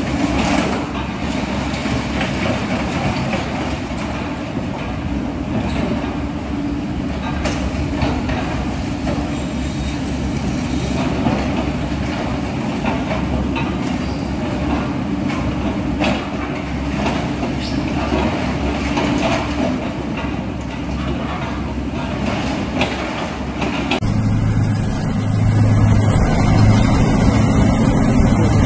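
Heavy diesel engine of an armoured bulldozer running under load, with scattered clatter and crashes of debris. About three-quarters of the way through the sound cuts to a deeper, louder, steadier engine drone.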